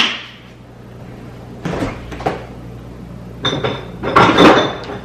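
A plastic flip-top cap snaps shut on a ketchup bottle with a sharp click. Kitchen handling noises follow: knocks and clatter of containers being moved, with the loudest burst near the end.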